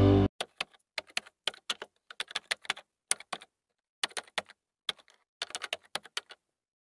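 Intro music cuts off just after the start, followed by a keyboard-typing sound effect: quick irregular runs of key clicks with short pauses, matching text being typed out on screen.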